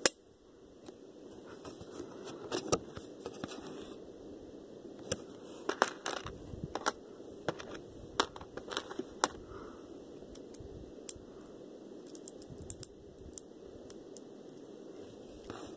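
Irregular clicks, taps and light scratching of packaging being handled and opened by hand.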